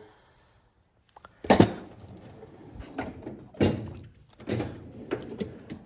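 Metal toolbox drawer being shut and the next one handled: one sharp metal thunk about a second and a half in, followed by several lighter knocks and rattles of drawers and tools.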